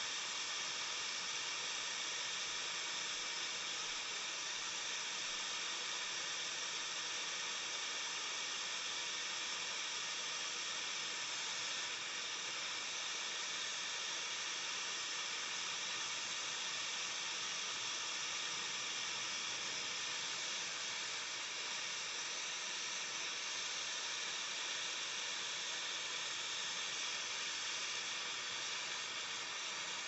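Air-acetylene torch flame burning with a steady hiss, heating a tube joint for brazing.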